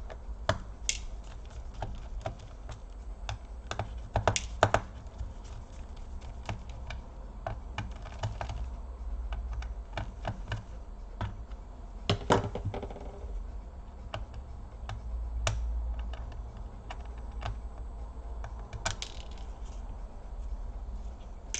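Irregular light clicks and taps of small screws, a screwdriver and the plastic case as a Samsung NP530 laptop is taken apart, with a few louder knocks about four, twelve and nineteen seconds in.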